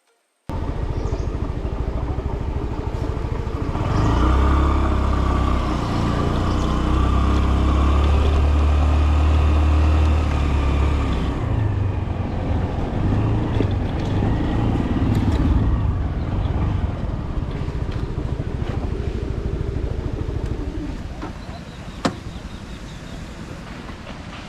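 Motor-vehicle engine and road noise on a hill road, as from riding a scooter. A heavier, deeper engine drone grows in about four seconds in and fades after about eleven seconds. The noise eases off near the end, with one sharp click.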